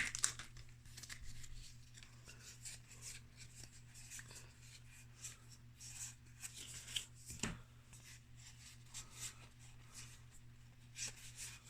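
Magic: The Gathering cards being flicked and slid one over another by hand: faint, scattered soft flicks and rustles, over a steady low hum.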